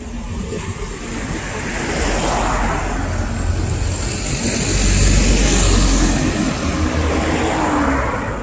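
A vehicle passing close by: a low engine rumble that builds over a few seconds, peaks about halfway through and fades near the end, its pitch dropping as it goes past.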